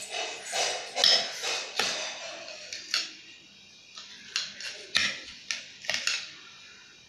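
Kitchen knife cutting through a soft steamed egg bun on a steel plate, the blade scraping and clicking against the metal in a string of irregular strokes. The strokes come thick at first and grow sparser, with separate sharp clicks in the second half.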